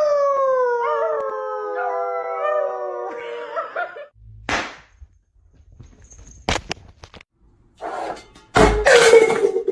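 A dog howling: one long call that slowly falls in pitch over about four seconds. A few sharp knocks follow, then a loud thump, and a second howl holds one pitch near the end.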